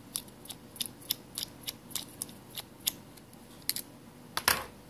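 Small, sharp metallic clicks from a precision screwdriver backing out the tiny screws of a Samsung Galaxy S6 Edge's midframe, coming irregularly about two or three a second, with one louder click about four and a half seconds in.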